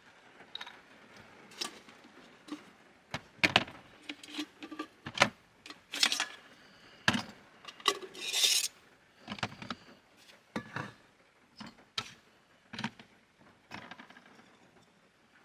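Scattered clicks, knocks and light clatter of small objects and cookware being handled while making coffee, with a short hiss a little past halfway.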